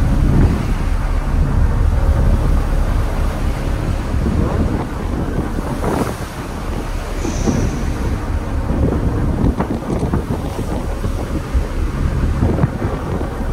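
Strong wind buffeting the microphone over the rush of a ferry's wash breaking and foaming along its hull.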